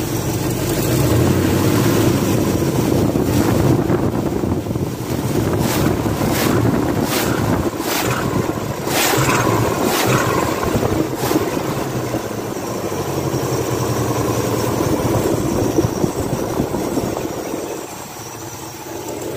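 Carbureted car engine running with the air cleaner off, blipped several times in a row, each blip a brief rush of intake noise, and falling back toward idle near the end. The throttle is worked to suck a spider lodged in the four-barrel carburetor through the engine, since the spider was keeping it from idling.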